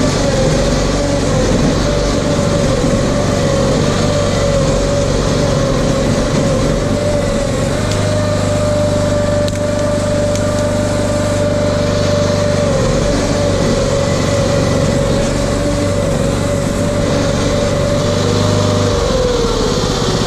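RS1000 off-road vehicle's engine running at a steady speed under way. The note dips briefly about two-thirds of the way in and falls off near the end as the engine slows.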